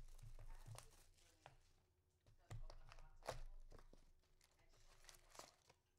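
Trading card packs and box being handled and opened: faint crinkling and tearing of wrappers with scattered sharp clicks, the loudest about three and five seconds in.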